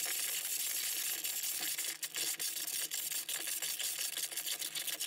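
A coiled steel pull-start spring ticking and scraping against a 3D-printed plastic barrel as it is pushed in coil by coil: many small, faint clicks over a light hiss.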